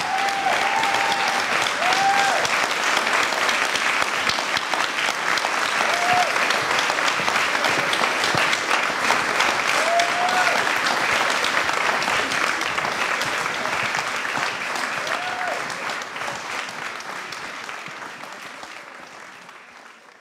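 Audience applauding steadily, with a few short cheers from voices in the crowd rising above the clapping. The applause fades out near the end.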